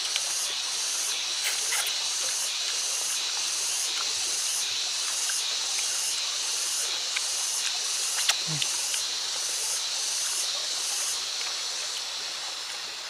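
Chorus of insects buzzing high and steady, pulsing about twice a second, stopping near the end, with a few light clicks over it.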